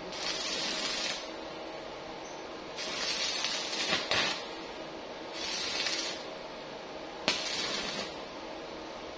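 Stick arc welding on steel rod: the electrode arcs in four short bursts of crackling hiss, each about a second long, with a sharp snap as the arc strikes on the last one. A faint steady hum runs underneath.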